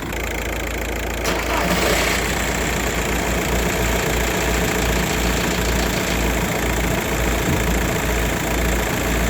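Volkswagen Passat 1.9 TDI diesel engine idling steadily with diesel clatter. There is a brief knock about a second in.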